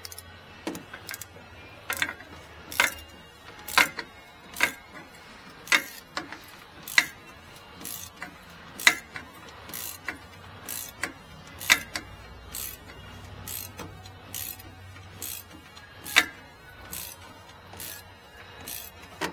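Sharp single clicks, about one a second, as the new fuel filter on a Chevy 3500 diesel is turned into its housing by hand.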